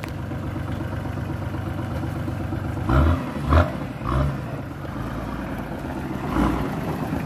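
Nissan Patrol Y60 engine running with four-wheel drive engaged for a hill climb. Three short, loud low thumps come about three to four seconds in, and a softer one near the end.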